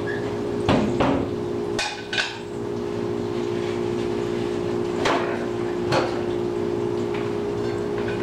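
A plate and a paper towel roll being handled at a kitchen counter: about six sharp clacks and knocks, mostly in the first two seconds and again around five and six seconds in, over a steady mechanical hum.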